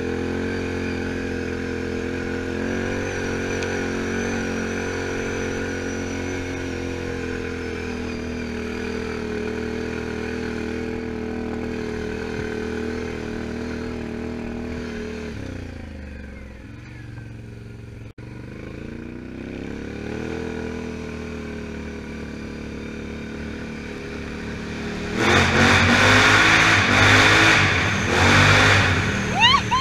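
Can-Am Outlander 1000 XT-P ATV's V-twin engine running steadily while riding. It eases off about halfway through and picks up again. Near the end it turns much louder and noisier as engine and tyre noise echo inside a corrugated metal culvert tunnel.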